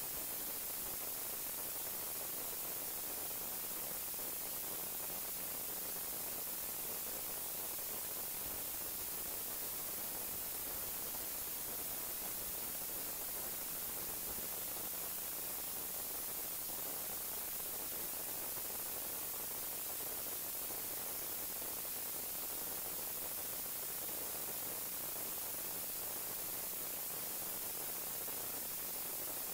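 Steady static hiss with a faint low hum, unchanging throughout, and no distinct pouring or handling sounds standing out.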